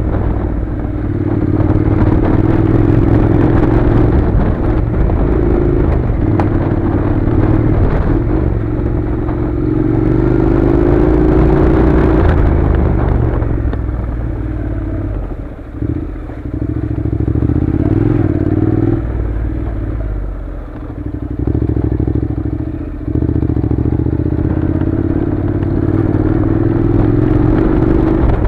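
Honda NC700's parallel-twin engine running under varying throttle as the motorcycle rides a rough gravel track, with stones clattering under the tyres. The engine eases off briefly a few times in the second half, then picks up again.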